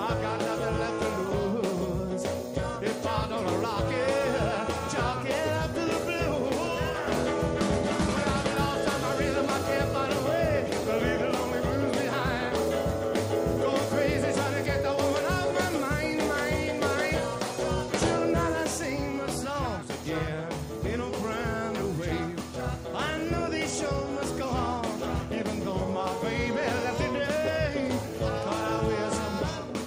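Rock and roll song with a singer over a full band.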